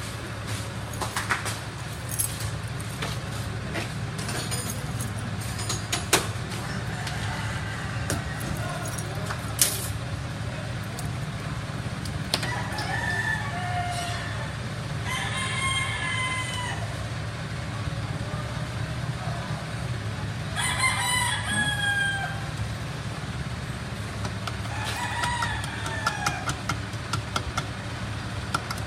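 A rooster crows about four times in the second half, over the steady hum of a vehicle engine idling. A few sharp knocks come in the first ten seconds.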